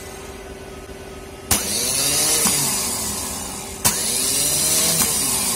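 Hyundai i10 starter motor, fitted with a new solenoid, run on a car battery on the bench: a sharp click as it is switched in about a second and a half in, then the motor spinning up and running steadily, with a second click about two seconds later as it runs on. It now turns at full speed; the slow rotation caused by the old burnt, rusted solenoid is cured.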